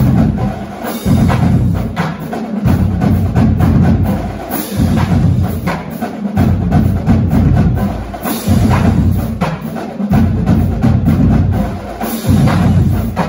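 Background music with a steady beat: a heavy bass line and percussive clicks.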